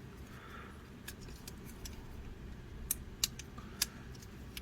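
Parts of a transforming robot toy clicking and tapping as they are handled and moved, a handful of light, sharp clicks with the strongest in the second half.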